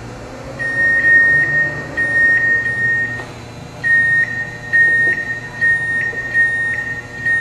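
Electronic beeper sounding a run of steady, high, single-pitch beeps, each up to about a second long, with a pause after the second beep, over a low machine hum.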